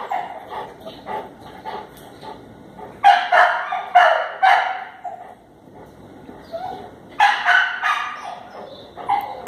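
A dog barking in runs of quick barks, the main runs about three seconds in and about seven seconds in.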